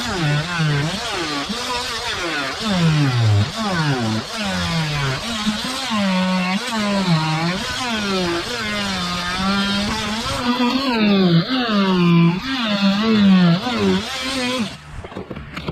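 Handheld cordless power tool motor running under load while cutting out the rotted wood core of a fiberglass sailboat deck. Its pitch dips and rises over and over as the tool bogs in the wet core and picks up again, and it cuts off near the end.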